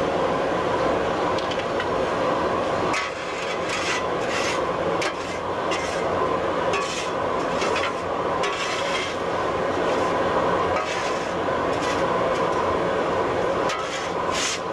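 A shovel scraping across a metal machine table in several irregular strokes, over a steady hum of shop machinery.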